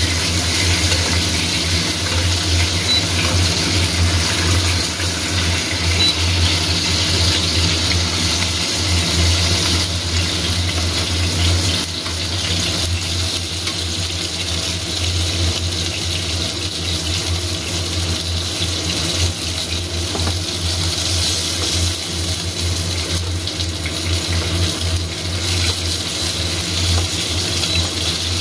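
Beef steak sizzling in hot oil in a frying pan, a steady hiss over a low steady hum, easing a little about twelve seconds in.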